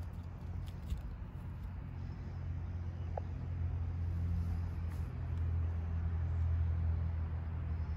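Low engine rumble of a motor vehicle running nearby, swelling louder midway and easing off near the end.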